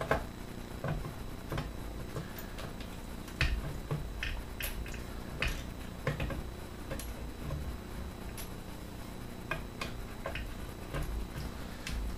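Irregular clicks and light knocks of metal parts being handled: an airsoft AK's V3 gearbox being worked loose inside its steel receiver, the wiring snagging as it is lifted out.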